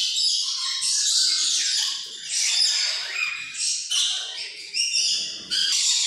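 Many caged birds chirping and whistling at once: a dense, overlapping chatter of short, high calls.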